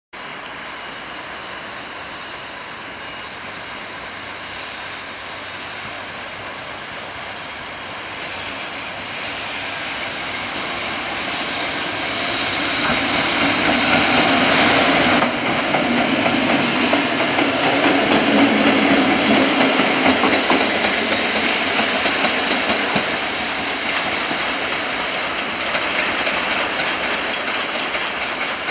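JR Freight EF210 electric locomotive, with an unpowered EF65 locomotive hauled behind it, approaching and passing close by. The sound grows louder to a peak about halfway, drops off suddenly, then carries on with the rhythmic clickety-clack of the two locomotives' wheels over rail joints before fading.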